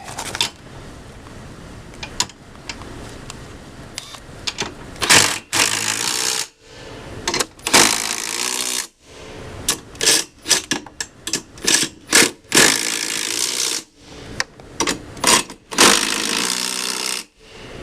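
Power drill boring bolt holes through a tow dolly fender: several runs of a second or two, a string of short trigger blips, and a longer run of about three seconds near the end.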